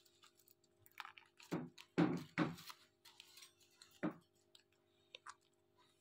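Rose-ringed parakeets making a few short, soft calls that fall in pitch, the loudest about two seconds in, with a few faint clicks near the end.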